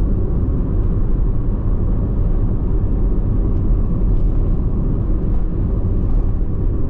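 Motorbike ride: steady engine and road rumble, with wind buffeting the microphone.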